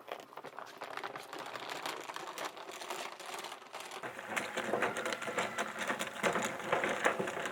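Dense, rapid crackling and clicking that grows louder over several seconds.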